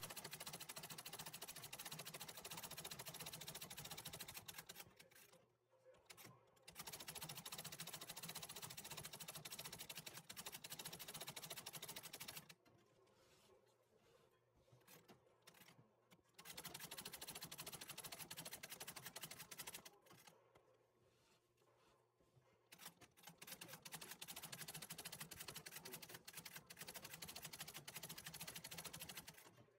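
Antique treadle sewing machine stitching faintly, doing free-motion embroidery. It runs in four stretches of a few seconds each, stopping for two to four seconds between them.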